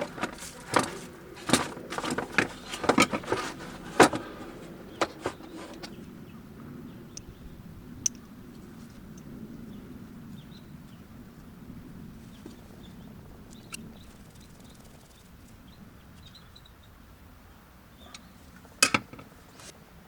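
A quick run of sharp clicks and knocks of hard objects being handled, then a quiet stretch with a few faint ticks, and a brief clatter near the end.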